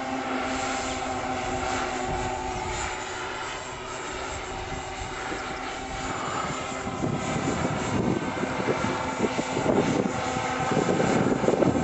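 Electric motors and propellers of a large RC scale Staaken R70 biplane bomber in flight, a steady whine made of several held tones. From about halfway a rough, gusty rumble joins in and becomes the loudest sound.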